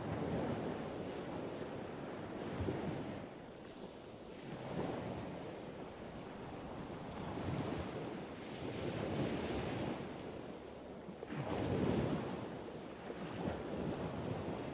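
Wind buffeting the camera microphone, a rumbling rush that swells and fades in gusts every two to three seconds.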